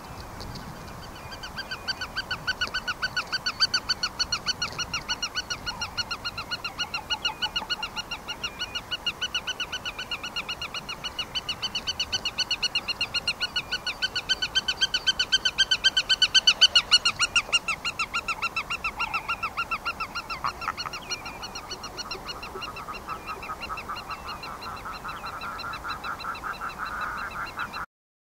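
Black-tailed godwit calling: a long, rapid series of repeated calls, several a second, growing louder toward the middle and cutting off suddenly near the end.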